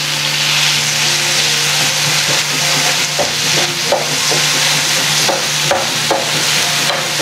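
Chopped tomato, onion and green chili sizzling in melted butter in a non-stick pan, while a wooden spatula stirs and scrapes through them, with short scrapes coming more often in the second half.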